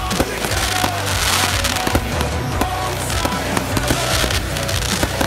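Aerial fireworks going off one after another, with many sharp bangs, over a song playing.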